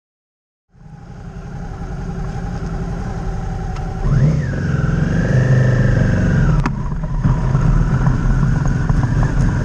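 Suzuki V-Strom's V-twin engine running, fading in from silence; about four seconds in it revs up, its pitch rising and then falling over about two seconds as the bike pulls away, with a sharp click just before it settles into steady running.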